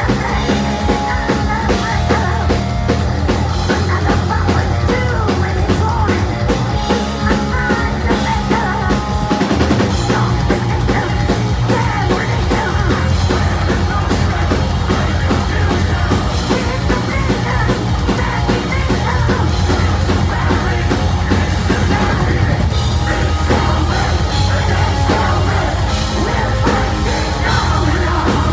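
Loud live heavy metal band: distorted electric guitars, bass and a drum kit, with a male lead voice singing over them.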